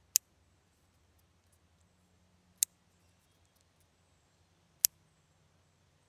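Clothespins snapping: three sharp clicks, about two and a half seconds apart.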